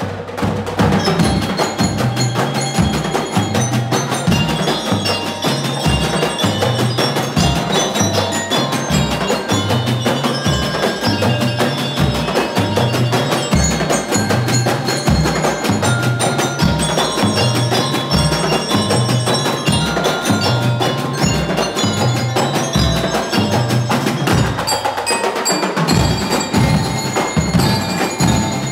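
A community band playing a piece, with a steady, regular drum beat under many ringing pitched notes.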